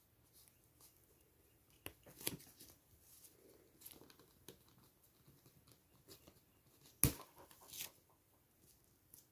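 Faint handling of a small plastic action figure and its swappable hand parts: light rustling with a few sharp plastic clicks. The loudest click comes about seven seconds in.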